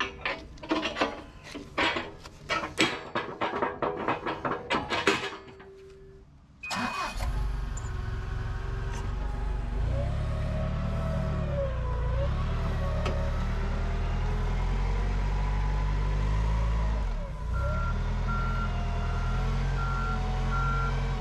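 Steel fork extensions clanking against the forks of a Clark forklift as they are fitted, then about seven seconds in the forklift's engine starts and runs, rising and falling as it drives. In the last few seconds its reversing alarm beeps steadily.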